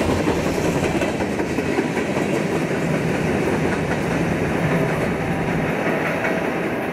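Freight train cars rolling past close by: a steady rumble of steel wheels on the rails, slowly getting a little quieter.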